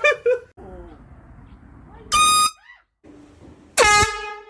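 Two short, loud air horn blasts about a second and a half apart: the first higher-pitched, the second lower and ringing on briefly as it fades.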